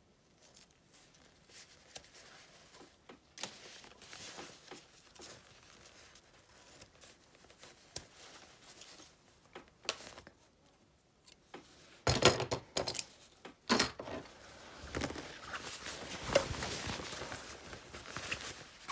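Scissors snipping off the excess end of a zipper and its tape, with scattered clicks and rustling of padded fabric being handled. A few loud sharp clacks come about twelve to fourteen seconds in, followed by a longer stretch of fabric rustling.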